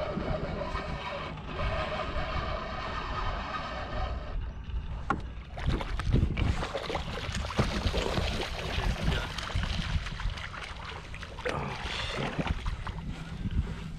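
Water sloshing and gear knocking aboard a fishing kayak, over a low wind rumble on the microphone. A steady whine in the first few seconds cuts off suddenly about four seconds in.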